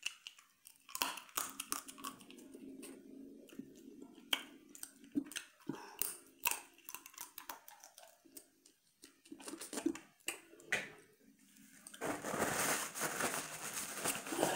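Close-up mouth sounds of eating seafood boil with the fingers: chewing, lip-smacking and wet clicks. Near the end, a paper towel rustles as the hands are wiped.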